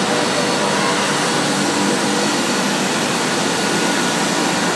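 Automatic glass screen-printing machine running: a steady airflow whoosh and hum from its blowers, with faint steady tones over it.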